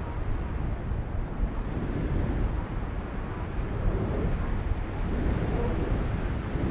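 Steady wind rushing over the camera microphone of a paraglider in flight, heavy at the low end.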